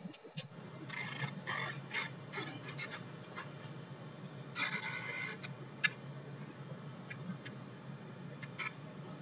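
Small metal tool scraping and clicking against the plastic body and motor-shaft fitting of a hair trimmer: several short rasping scrapes, a longer one around the middle, and a few sharp clicks.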